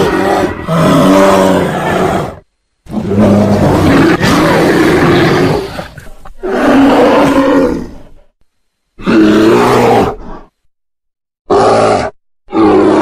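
Bear roaring and growling in a series of deep, drawn-out calls, each lasting one to three seconds, with abrupt gaps of dead silence between them.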